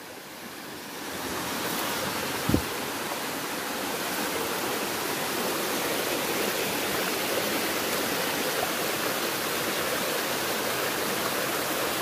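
A waterfall spilling down a steep rock face, its water rushing steadily, growing louder over the first second or two. A brief low thump comes about two and a half seconds in.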